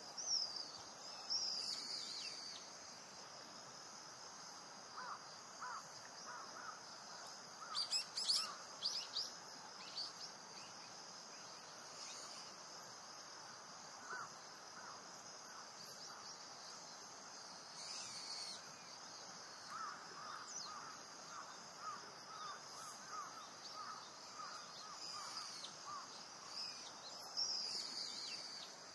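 Wild birds calling over a steady high insect hum: loud high gliding calls come four times, and two runs of short, quick lower-pitched notes come between them.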